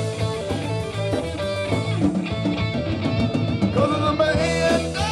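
Live rock band playing a song: electric guitar over a drum kit, loud and steady.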